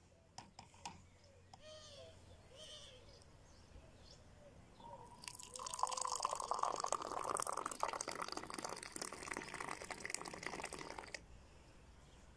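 Moroccan mint tea poured from a silver teapot, held high, into a glass: a splashing stream that starts about five seconds in and stops about six seconds later.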